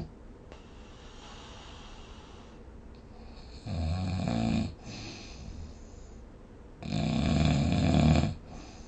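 A person snoring: two loud snores, the first about a second long midway through and the second about a second and a half long near the end, with quieter breathing between them.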